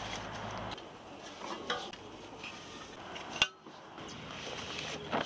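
Garden tools being handled and pulled from a tool caddy: scattered light clinks and knocks, with one sharper clink about three and a half seconds in.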